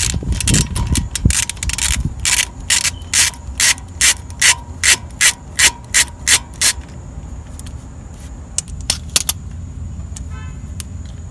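Ratchet with a 6 mm hex bit clicking as it turns out the rotor's hex-head retaining screw. A few scattered clicks lead into a steady run of about two to three clicks a second that stops about seven seconds in, with a few more clicks later.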